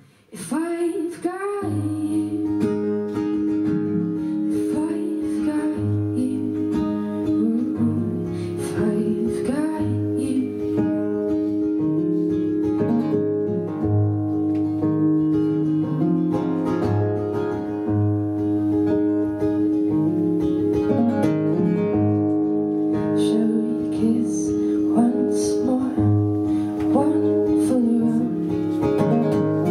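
A woman singing live to her own acoustic guitar accompaniment. The sound cuts out for a moment right at the start, then the song carries on.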